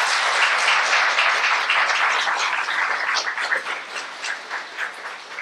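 Audience applauding, dense at first, then thinning out to a few scattered claps near the end.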